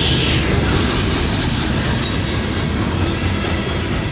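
Loaded Norfolk Southern coal hopper cars of a freight train rolling past, a loud, steady rumble and clatter of steel wheels on rail, with a thin high wheel squeal that fades out early.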